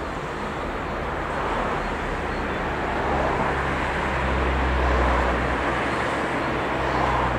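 Road traffic noise: a steady hiss of passing traffic with a low engine rumble that swells about halfway through and then eases off, as a vehicle goes by.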